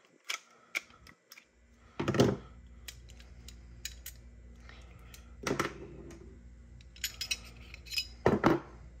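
Clicks and clatter of a Springfield Echelon 9mm pistol being field-stripped by hand: the slide coming off the polymer frame and the recoil spring assembly coming out. Three louder sharp knocks about two, five and a half and eight and a half seconds in, with lighter clicks between.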